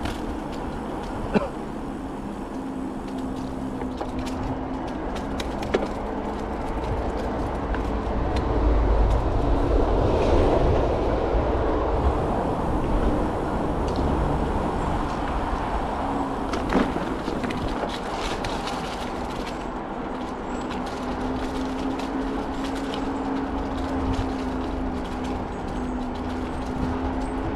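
Bicycle rolling along a trail: steady tyre noise and wind rumble on the action-camera microphone, with a few sharp knocks from bumps. The rumble swells about eight to twelve seconds in.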